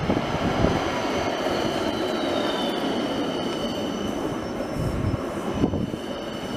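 Articulated city tram passing close on curved street track: a steady rumble of steel wheels on rail with high, thin wheel squeal, one tone gliding downward in pitch a couple of seconds in.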